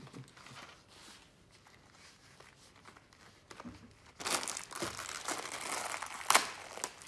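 Faint rustling of gloves being pulled on, then about four seconds in a loud crinkling of a plastic bag being torn open and handled to get at a pair of safety glasses, with one sharp snap near the end.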